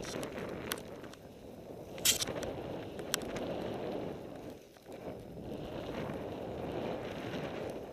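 Snowboard sliding over packed snow, a scraping hiss that swells and fades with the turns and dips briefly about halfway through. A few sharp clicks cut in, the loudest about two seconds in.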